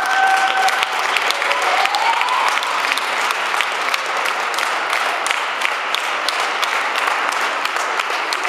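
Audience applauding steadily, many hands clapping at once, with a voice briefly calling out in the first couple of seconds.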